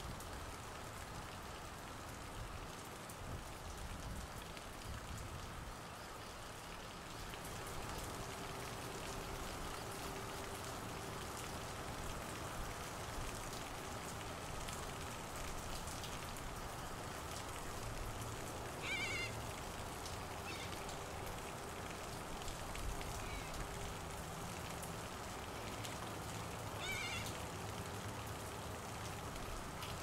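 Steady heavy rain falling on foliage and the ground, with a flock of cockatoos giving two short harsh calls, one past the middle and one near the end.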